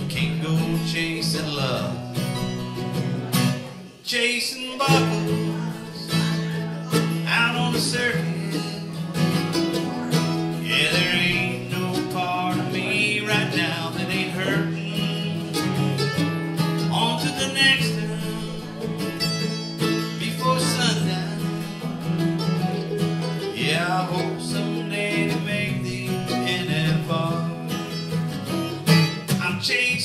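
Guitar and mandolin playing an instrumental break without vocals, with quick picked runs over steady low strummed notes and a brief drop in loudness about four seconds in.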